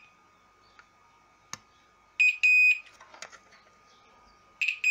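A multimeter's continuity beeper gives two pairs of short, high beeps, one pair a little past halfway and one at the end, as the probe touches the MOSFET pins on a graphics card. The beeps signal a connection, the result expected on a healthy MOSFET's source pins. A small click of the probe tip sounds just before the first pair.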